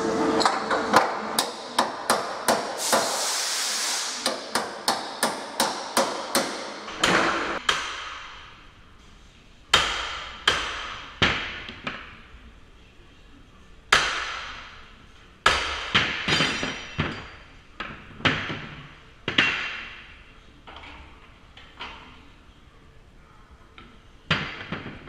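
Hammer blows on steel wedges driven between a steel door and its frame, each blow a sharp metallic clang that rings on, as the door edge is forced in a leverage attack. The first seconds hold a quick run of blows about two a second, broken by a loud burst of hissing noise about three seconds in, and slower single blows follow.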